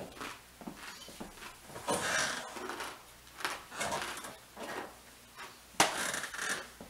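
Rustling and knocking from someone handling loose sheets of paper and a drinking glass while sitting down, with a sharp knock about six seconds in as the loudest sound.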